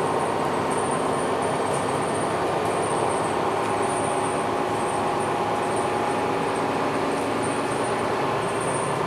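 Cabin noise of a MAN NL323F A22 Gemilang city bus on the move at low road speed: a steady drone from the engine and drivetrain, with a steady whine above it.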